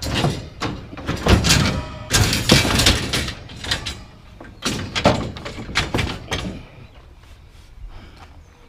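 A run of loud clattering bangs and knocks from hard objects being handled and dropped, with a short lull midway. It stops about six and a half seconds in.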